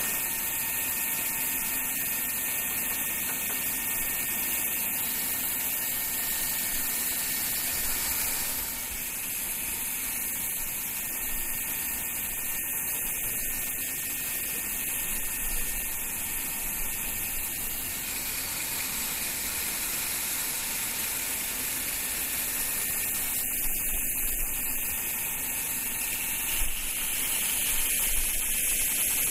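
Woodworking band saw running with a steady whirring hiss. Near the end it cuts into a wooden strip, and the sound gets a little louder.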